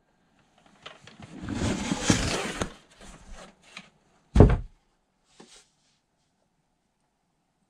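Rustling of a large poster board being handled, then one loud thump about four seconds in as it comes down, and a fainter knock a second later.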